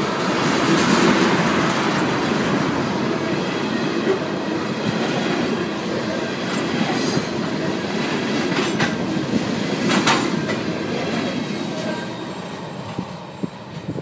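Freight train of tank cars rolling past: a steady rumble of steel wheels on rail with clickety-clack and a few sharp clicks, fading near the end as the last car goes by and draws away.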